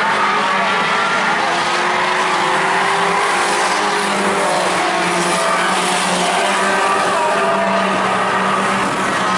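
A pack of small stock cars racing on a paved oval, many engines running hard at once with overlapping engine notes, loud throughout.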